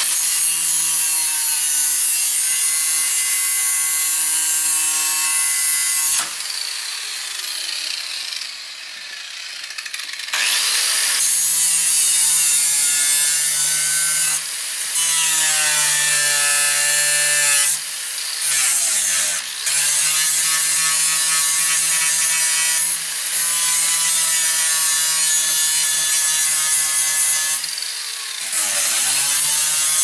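Corded angle grinder cutting through the sheet-steel casing of a microwave oven: loud grinding over the motor's whine. The disc comes off the metal several times, longest from about six to ten seconds in, when the sound drops back and the whine slides down in pitch; twice more, later on, the pitch dips briefly and winds back up.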